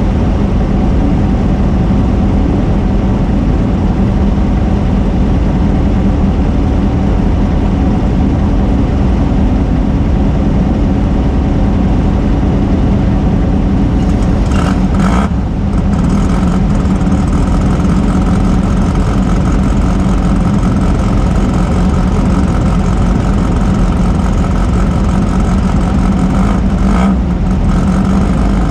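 Off-road race car's engine running hard at a fairly steady pitch, with a brief dip about halfway through.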